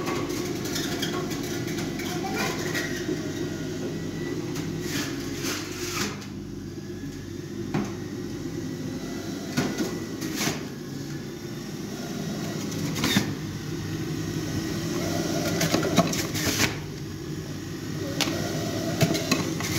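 Steady low mechanical hum, like a small motor running, with scattered sharp clicks and knocks through it.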